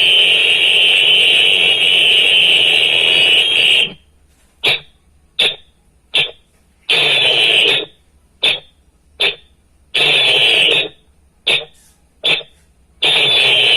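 A hand-blown whistle sounding a signal pattern: a long blast of about four seconds, then three short blasts, a longer blast, two short, a longer blast, two short, and another longer blast starting near the end.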